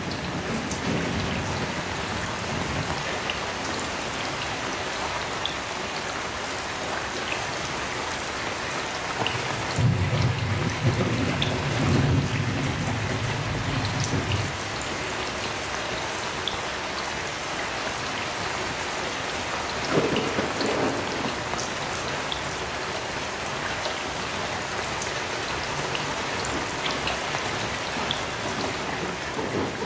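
Heavy rain falling steadily, with a low roll of thunder from about ten seconds in that lasts several seconds, and a shorter rumble of thunder starting sharply about twenty seconds in.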